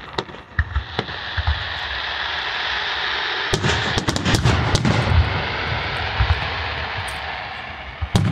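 Fireworks display: a few separate shell bursts at first, then about three and a half seconds in a dense barrage of rapid booms and cracks with a deep rumble underneath.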